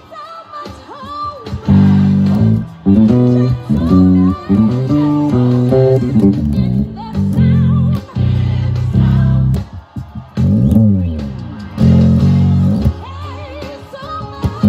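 Electric bass guitar played fingerstyle, with held low notes and quick runs that include a few sliding glides. It plays along with a gospel choir track that has singing in it.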